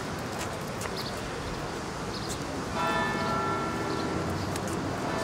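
Church bell ringing, struck about three seconds in and left to ring on, over steady outdoor background noise.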